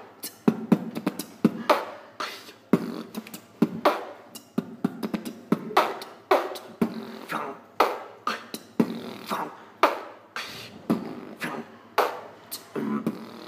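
A man beatboxing solo: sharp mouth-made clicks and snare-like hits alternating with short voiced bass sounds in a quick, steady rhythm.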